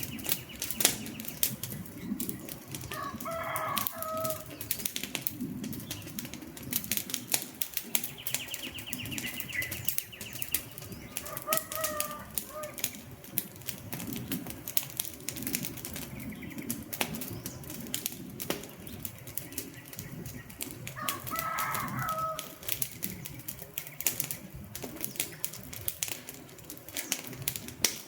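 Wood campfire crackling, with frequent sharp snaps and pops over the low rush of the flames. A bird calls three times, a few seconds in, near the middle and about three quarters through, and a faint high trill sounds twice early on.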